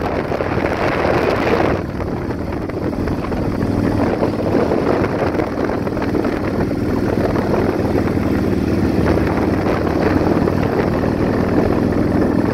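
A vehicle driving at road speed: steady noise of tyres, wind and engine, with the upper hiss dropping a little about two seconds in and a faint steady engine note near the end.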